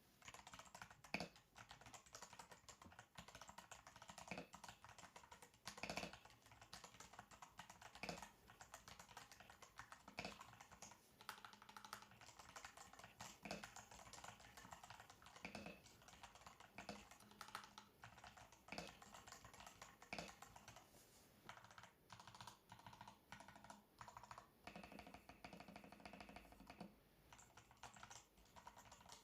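Typing on a custom mechanical keyboard: a steady run of fast key clicks, with a louder, deeper keystroke every two seconds or so.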